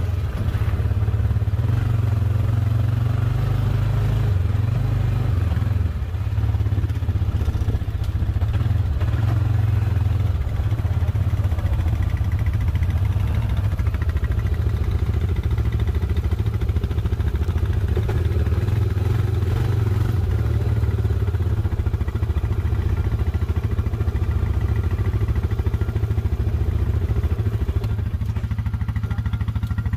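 Off-road vehicle engine running steadily, a loud low drone that eases slightly near the end.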